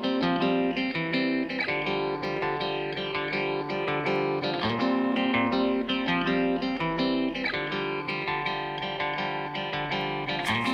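Background music led by plucked guitar, with steady, rhythmic picked notes.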